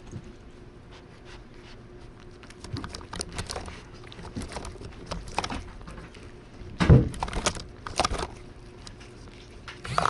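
A cat licking treat paste right at the microphone: irregular wet licking and tongue clicks, with a louder thump about seven seconds in.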